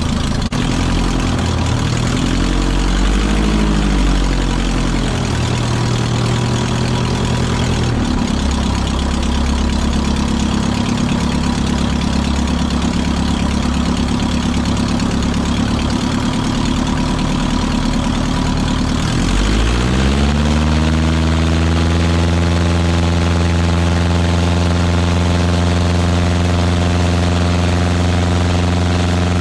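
Engine of an RLU-1 Breezy homebuilt pusher airplane running at taxi power, its pitch wavering slightly early on. About 19 seconds in the throttle opens and the engine speeds up quickly to a higher, steady note at full power for the takeoff run.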